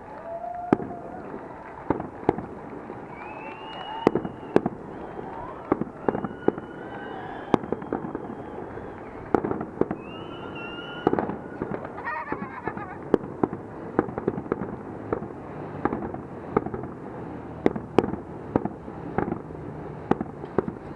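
Fireworks going off: an irregular string of sharp bangs and pops, roughly one a second with some quick clusters, over a steady background hiss.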